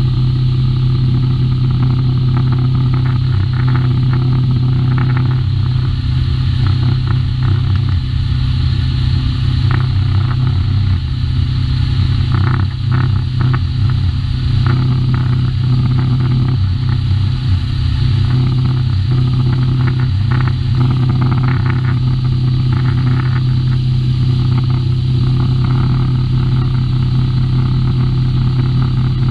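Outboard motor of a RIB boat running steadily, a constant low drone.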